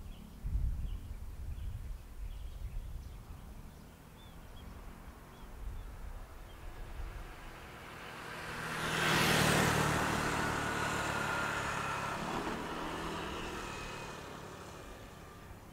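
A road vehicle, most likely a car, drives past. Its engine and tyre noise swells to a peak about nine seconds in, then fades away over several seconds with a faint whine that falls slightly in pitch. Low rumbling comes in the first few seconds.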